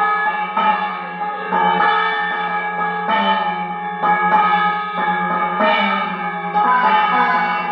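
Temple ritual music: bells and a gong ringing, struck about once a second over a steady low drone.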